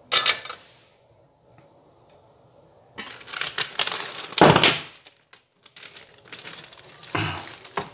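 Handling noises on a workbench: a short clatter at the start, then from about three seconds in a run of crackly rustling and crinkling with a few louder knocks.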